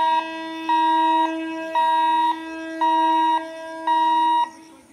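Level crossing warning alarm sounding an electronic beep about once a second, the signal that the gate is closed and a train is due. A lower steady tone sounds beneath the beeps and cuts off just before the end.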